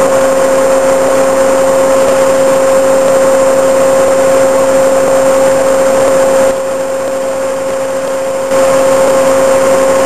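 XM1126 Stryker eight-wheeled armored vehicle driving over rough ground, its diesel engine and drivetrain running with a steady high whine. The sound drops off abruptly for about two seconds past the middle, then comes back.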